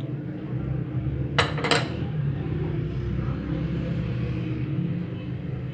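A steady low machine hum in a workshop, with two sharp metallic clinks close together about a second and a half in, near a lathe's three-jaw chuck being handled.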